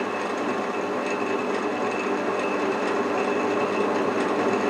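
Benchtop drill press running steadily, spinning a wooden stick held between its chuck and a lathe tailstock.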